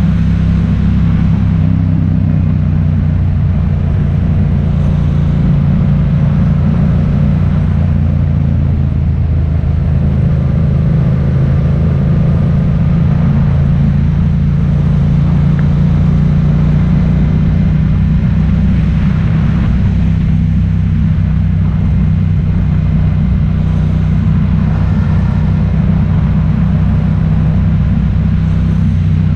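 Vehicle engine running steadily under way, a loud, even low drone with no change in speed.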